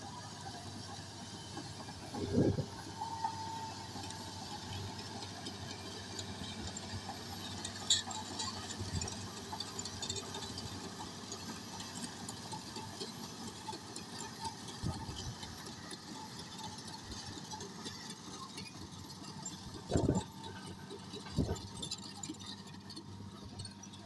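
Large Komatsu crawler bulldozer's diesel engine running steadily as it pushes and levels sand with its blade, with a few short low thumps about two seconds in and twice near the end.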